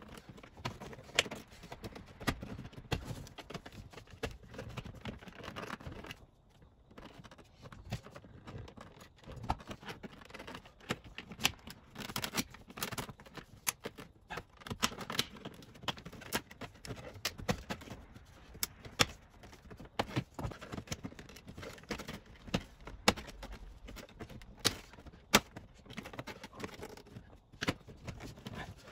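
Plastic pry tool working along a 2019 Volkswagen Jetta's plastic dashboard trim panel, a string of sharp clicks and short scrapes as the stubborn trim clips are forced.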